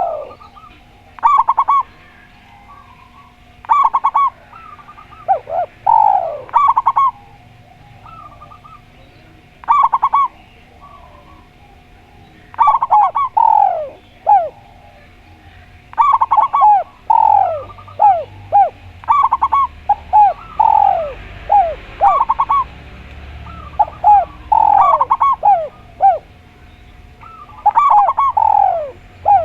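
Spotted dove and zebra dove cooing back and forth: repeated bursts of short, falling coo notes every second or two, with brief pauses between phrases.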